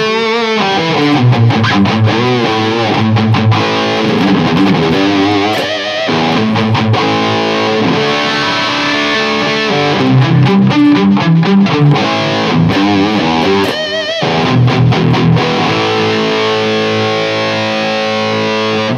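Schecter Banshee 6 FR electric guitar played through a Hughes & Kettner Tubeman Plus tube preamp on its Lead 1 channel with the mid boost engaged, into an ENGL EL34 power amp. Saturated, distorted riffing of chords and single notes with short breaks about 6 and 14 seconds in, cutting off sharply at the end.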